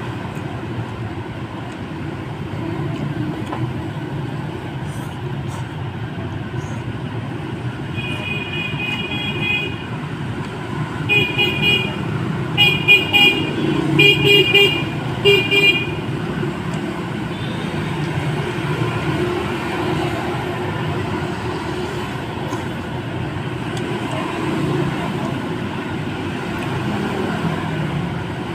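Steady street traffic noise. About a third of the way in, a vehicle horn honks: one longer honk, then four short honks over a few seconds.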